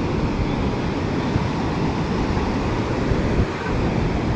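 Sea surf washing on the beach, mixed with wind buffeting the microphone as a steady, churning rumble.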